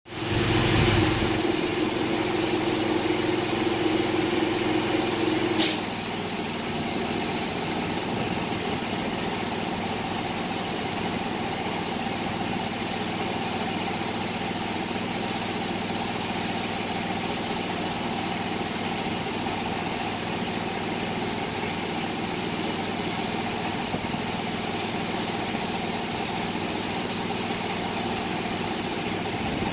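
Air compressor running steadily while a spray gun on the air hose hisses, spraying paint. A higher steady hum in the first six seconds stops with a sharp click, and an even hum and hiss carry on after it.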